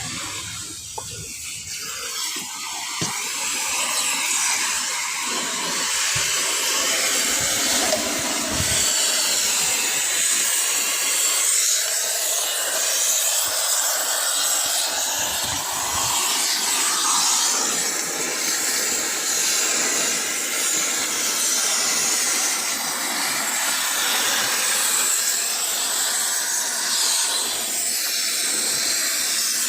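A steady, loud hissing noise that builds over the first few seconds and then holds.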